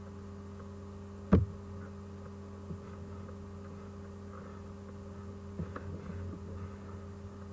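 Steady electrical mains hum, with one sharp knock about a second and a half in and a few faint clicks later on.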